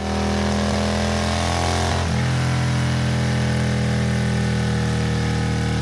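Motorcycle engine sound: a steady running engine note whose pitch changes about two seconds in.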